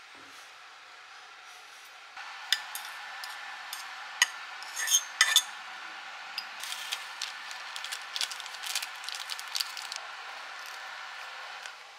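A metal fork clinking and scraping against a pot and a ceramic bowl as instant noodles are served. Several sharp clinks come between about two and a half and five and a half seconds in, followed by lighter, quicker ticking.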